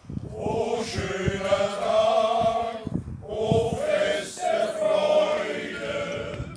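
Men's choir singing in several-part harmony, holding long notes, with a short break between phrases about three seconds in.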